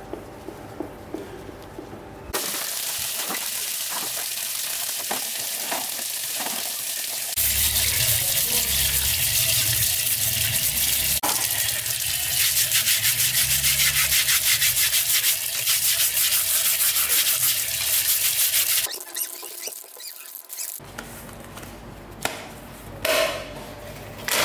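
Repaired electric table fan switched on and running, its airflow rushing over the microphone; it grows louder about seven seconds in, with a low rumble and a fast, even pulsing, then stops suddenly about nineteen seconds in.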